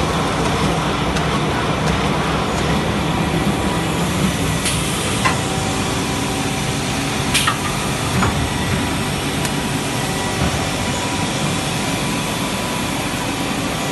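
Horizontal stretch-wrapping machine running, a steady mechanical hum from its motors and conveyor with a faint whine. A few sharp clicks come about five and seven to eight seconds in.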